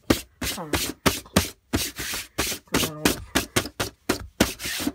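Quick sharp plastic clicks and taps, about four a second, as hands press and handle a plastic toy wrestling ring, with a short murmured voice twice.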